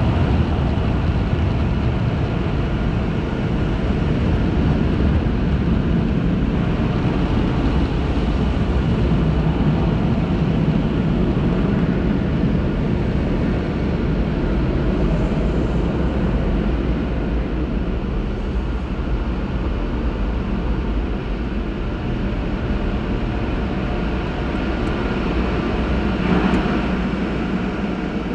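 Car wash dryer blowers running with a steady rush of air and a low rumble, heard from inside the car as it leaves the wash tunnel.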